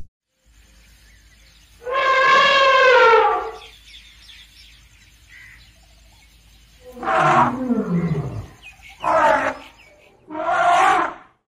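Animal roar sound effects: one long call about two seconds in, then three shorter calls from about seven seconds on, the first falling in pitch.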